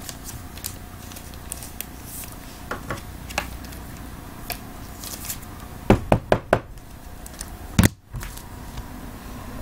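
Handling of trading cards, card holders and boxes on a tabletop: scattered light clicks and taps, then four sharp knocks in quick succession about six seconds in and one more knock near the end.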